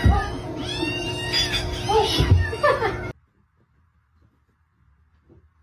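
Domestic cat meowing several times in rising-and-falling calls, cut off abruptly about three seconds in, leaving near silence.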